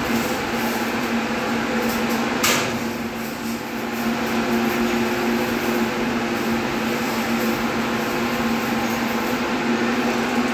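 A steady machine hum with a droning low pitch over a dense background noise, and a single sharp click about two and a half seconds in.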